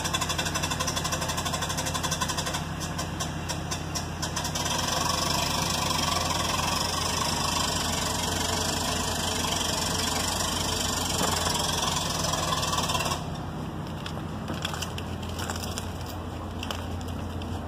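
An engine running steadily with a constant low hum under a broad hiss. The hiss drops away suddenly about thirteen seconds in, leaving the hum.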